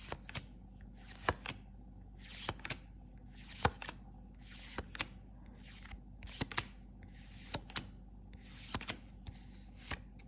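Dragon Ball Super trading cards being flipped through in the hand, each card slid off the stack and placed on the front: short paper snaps, often in pairs, about one every second, with brief sliding rustles between them.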